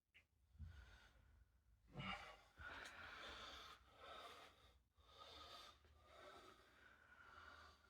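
Near silence: faint room tone with two soft knocks, about half a second and two seconds in.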